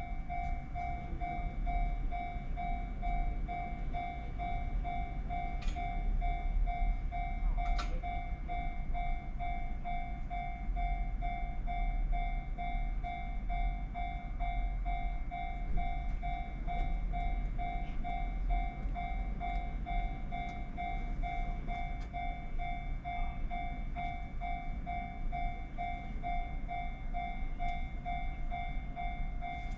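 Japanese railway level-crossing alarm bell ringing in an even, unbroken pulse, over a low rumble.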